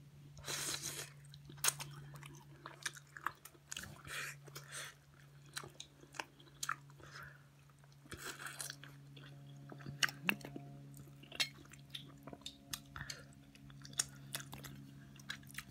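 Close-miked eating ASMR: a person chewing and smacking with their mouth, irregular wet clicks and smacks every half second or so, over a steady low hum.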